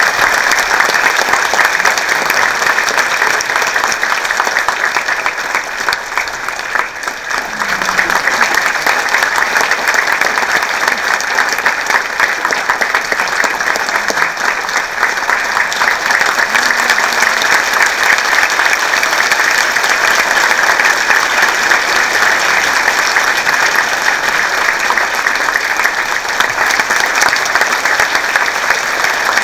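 Large audience applauding steadily, with a brief dip about six seconds in before it swells again.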